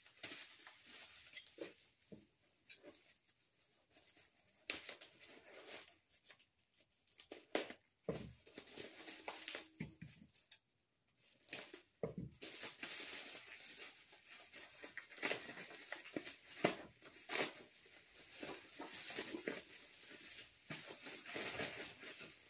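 Plastic bubble wrap being handled and pulled off a wrapped bag, crinkling and rustling with irregular crackles. The crinkling is patchy at first and nearly continuous over the second half.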